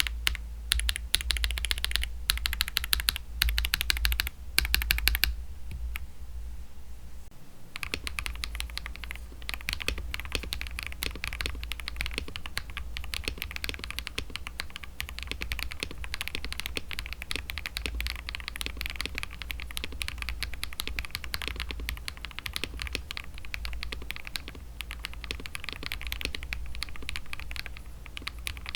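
Typing on a KBD67 Lite mechanical keyboard fitted with Akko CS switches: a fast, steady run of keystrokes. It stops briefly about five and a half seconds in and starts again about two seconds later.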